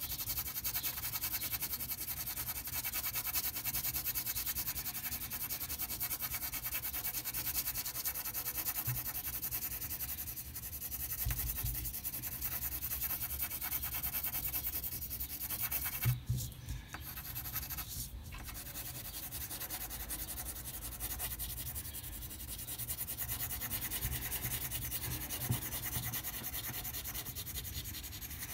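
Colored pencil scratching rapidly back and forth on paper, shading in an area with quick, even strokes. A little past halfway the strokes break off briefly, with two light knocks.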